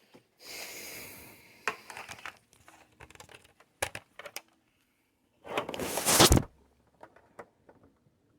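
Handling noises: rustling and crinkling with scattered sharp clicks, and a loud rustling scrape lasting about a second near the middle.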